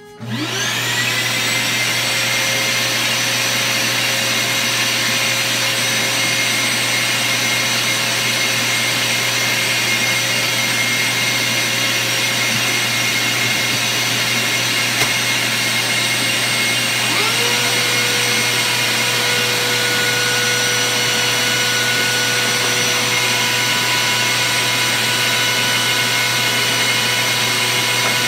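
A router in a router table and its dust-collection vacuum start up and run steadily without cutting. One motor spins up right at the start with a rising whine, and a second motor spins up and joins it a little past halfway.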